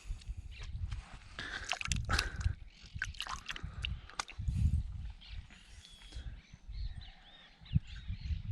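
Scattered small clicks and knocks over a patchy low rumble, with a bird chirping several short curved notes in the last couple of seconds.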